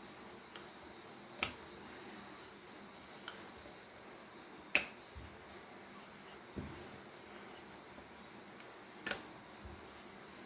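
Wooden rolling pin working a disc of luchi dough on a round wooden board, giving a handful of sharp wooden clicks and knocks at irregular intervals a second or more apart, the loudest about halfway through, over a faint hiss.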